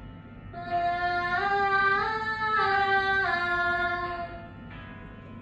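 A young woman singing a vocal warm-up exercise: one held vowel that steps up two notes and back down again, a rise-and-fall scale lasting about four seconds.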